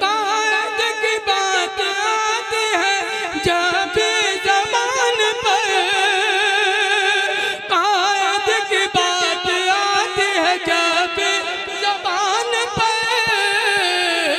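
A man's voice singing a line of an Urdu naat in classical style, drawn out in long held notes with wavering, ornamented pitch, amplified through a stage microphone.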